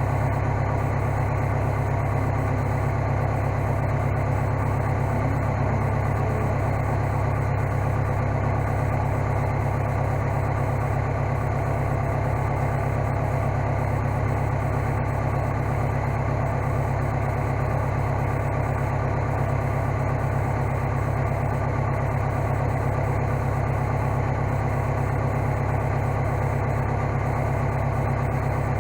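Case skid steer engine running steadily at an even speed, with no change in pitch or load.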